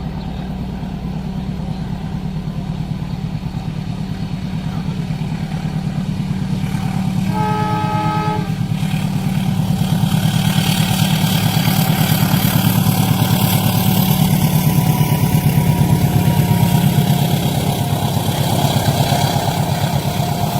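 Diesel train horn sounding once for about a second and a half, over a steady low engine hum. From about halfway in, the train's rumble and wheel-on-rail noise swell and stay loud as it passes through the crossing.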